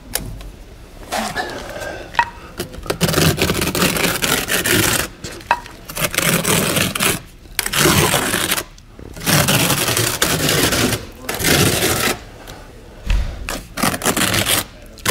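Trowel spreading a mortar scratch coat onto the mesh on a wall: a series of scraping strokes, each a second or two long, with short pauses between them.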